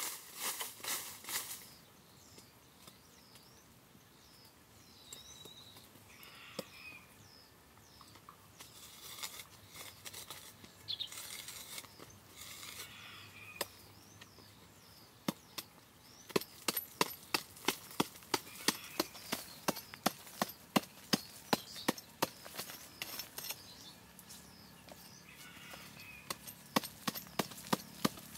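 A long-handled hoe chopping into a packed dirt bank: after a quieter stretch of scattered rustling, sharp blows set in about halfway through and repeat steadily at roughly two a second.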